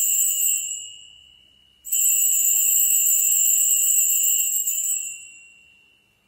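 Altar bells rung at the elevation of the chalice at the consecration. The first ring fades out in the first two seconds, then a second ring starts sharply about two seconds in, holds for about three seconds and dies away.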